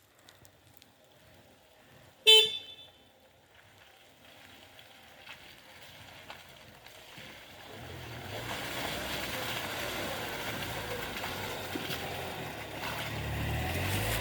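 A single short car beep about two seconds in, then a vehicle engine running with a low hum and rushing noise that builds from about halfway.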